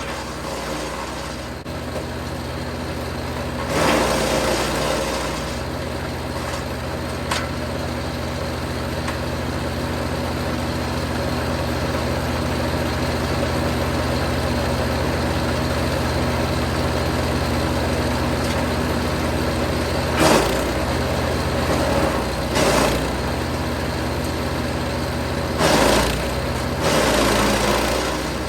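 Jansen 1500e GTS wood chipper running steadily, with several short loud bursts of chipping noise as branches are fed through: one about four seconds in, two around twenty seconds, and two near the end.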